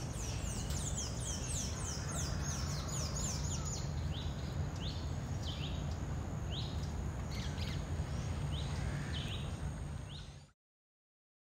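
Birds chirping: a quick series of high, downward-sliding chirps with some shorter rising notes, over a steady low rumble. It all cuts off suddenly about a second before the end.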